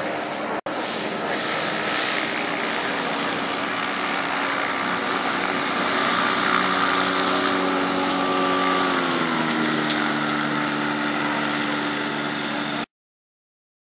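Kolb Firestar ultralight's small pusher engine and propeller running as the plane taxis on grass, a steady engine note that drops in pitch about nine seconds in as the throttle is eased back. The sound cuts off suddenly near the end.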